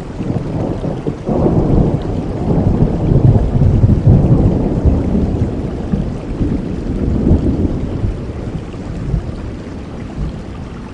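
Rolling thunder over steady heavy rain: a deep rumble swells a little over a second in, peaks a few seconds later and fades away, while the rain hiss goes on throughout.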